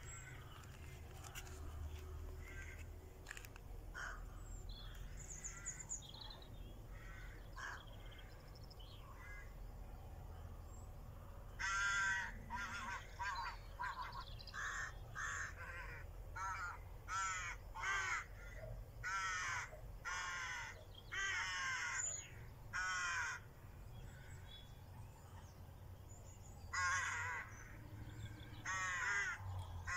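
A crow cawing: a quick series of about a dozen harsh caws partway through, then a few more near the end, over a low outdoor rumble and fainter bird calls.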